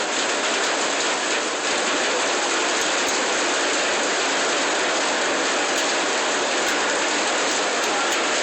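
Hail falling steadily, a dense, even hiss and patter of hailstones striking surfaces without let-up.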